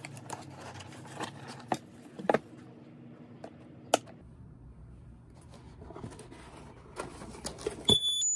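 Cardboard box being handled, with scrapes and knocks and a sharp click about four seconds in as its rocker switch is flipped on. Near the end, a high-pitched electronic alarm beep starts as the lid is lifted: the box's warning buzzer set off by opening it.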